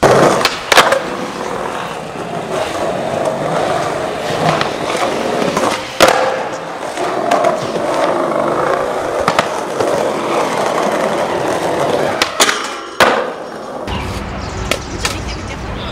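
Skateboard wheels rolling on hard ground, with sharp wooden clacks of the board popping and landing about half a second in, again around six seconds in, and twice near twelve to thirteen seconds. The rolling gives way to a low steady hum for the last couple of seconds.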